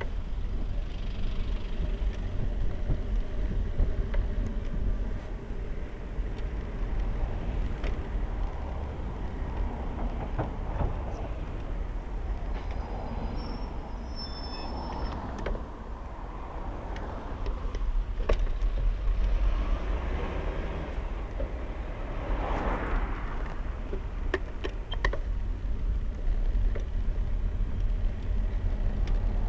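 Urban road traffic heard from a bicycle-mounted camera: a steady low rumble of engines from the bus and cars close by, with scattered sharp clicks and a brief rushing swell about three quarters of the way through.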